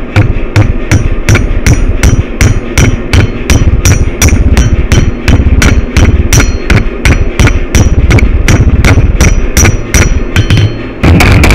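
Hand hammer striking a white-hot billet of blister steel on an anvil, about three blows a second with a short high ring after each. Just before the end, a power hammer starts in with faster, steadier blows.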